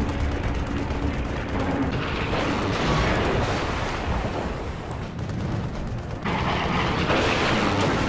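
Battle sound effects of a burning fighter plane going down: gunfire over a steady aircraft engine drone that fades out about two seconds in. About six seconds in a sudden, louder rush of noise breaks out as the plane crashes into the sea.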